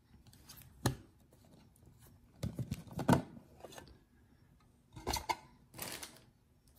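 Hands handling a plastic trading-card repack cube: several sharp clicks and taps of the clear plastic case and cards knocking against each other and on the table, scattered at irregular moments.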